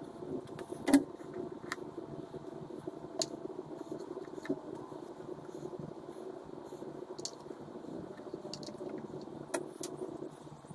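A few sharp clicks and clinks of small metal car parts being handled, the loudest about a second in, over a steady low hum.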